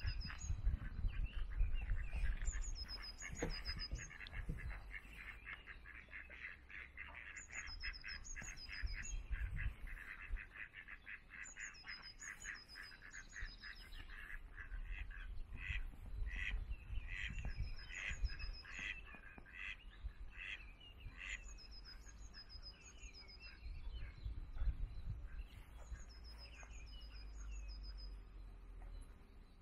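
Ducks quacking in long rapid runs of calls, more spaced out and louder in the middle, while a small bird repeats short high chirps. A low rumble sits underneath, strongest in the first few seconds.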